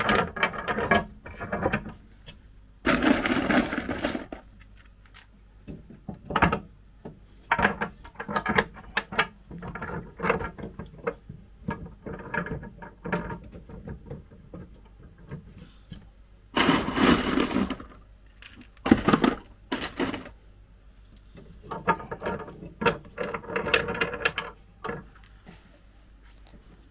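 Pieces of lava rock clattering, knocking and scraping against each other and the cork bark as they are handled and wedged into a glass tank. The knocks and clicks come irregularly, with two longer scraping rustles, one about three seconds in and one about seventeen seconds in.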